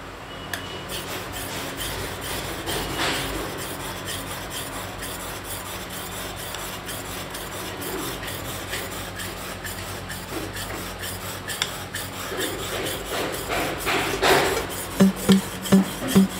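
Rasping, scraping noise full of fine ticks, swelling twice. Near the end a rhythmic music beat comes in.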